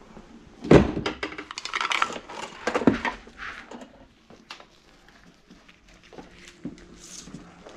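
Clatter and knocks of a hand drain auger and its cable being handled, a dense run of knocks starting about a second in, then quieter with a few scattered clicks.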